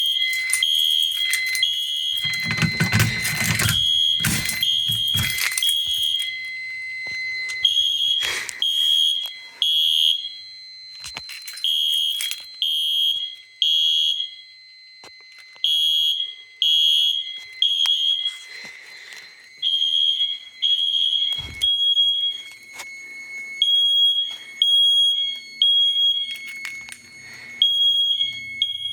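Fire alarm mini horns sounding a high-pitched electronic beep in the temporal-3 evacuation pattern: three short beeps, a pause, then repeating. A burst of loud noise a few seconds in, within the first beeps.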